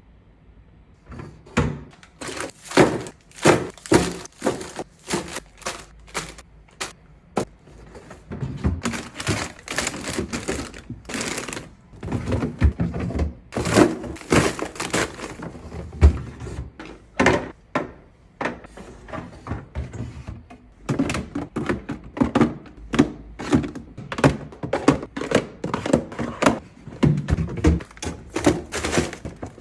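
Irregular clatter of groceries, bottles and storage containers being knocked and set down on refrigerator shelves and in the door bins: a quick series of knocks and thunks, several a second, with brief pauses between bursts.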